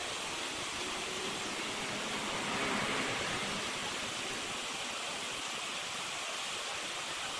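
Steady rush of water pouring through an opened beaver dam, swelling slightly about three seconds in.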